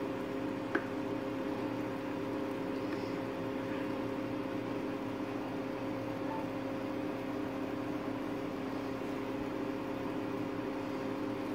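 Steady mechanical hum of a running motor with a hiss beneath it, holding an even pitch throughout; a single light clink of the ladle against the pan about a second in.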